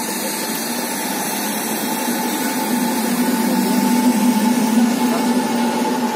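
Electric multiple unit pulling out slowly, a steady mechanical hum from its traction and auxiliary equipment with a low drone that swells louder midway as the powered car passes.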